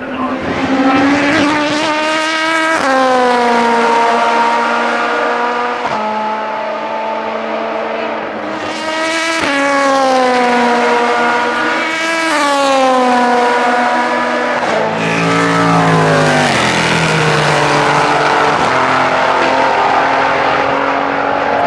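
Prototype-class race car engines at racing speed. The note climbs and falls sharply with quick upshifts several times, then steps down through a run of downshifts about fifteen seconds in and settles into a steadier, lower tone.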